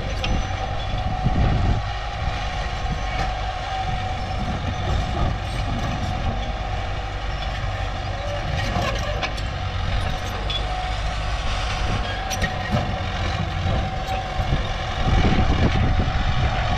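Komatsu mini bulldozer's diesel engine running under work, a steady low rumble with a constant high whine and occasional sharp metallic clanks; it gets louder near the end.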